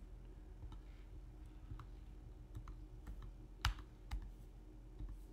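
Several light computer-keyboard key clicks spaced irregularly, one noticeably louder about two-thirds of the way in, over a faint steady hum.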